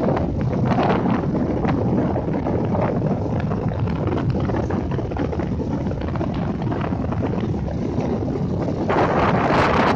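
Ocean surf breaking and washing up the beach in a steady rush, with wind buffeting the microphone. The rush swells louder near the end.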